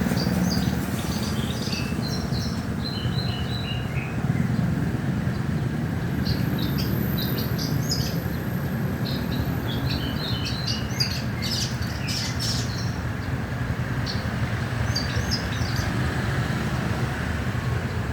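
A small songbird, kept as a tipsi bird, giving short high chirps in scattered bursts, busiest in the middle, over a steady low background rumble.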